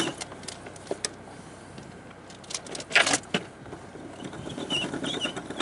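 Anchor rode being hauled in by hand over a sailboat's bow: scattered metallic clinks and knocks, with one loud clank about three seconds in, over the steady hum of the boat's idling engine.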